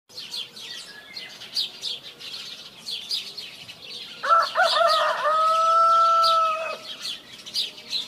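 A rooster crows once, a long call that rises and then holds a steady note, starting about four seconds in and ending near seven seconds. Small birds chirp all through.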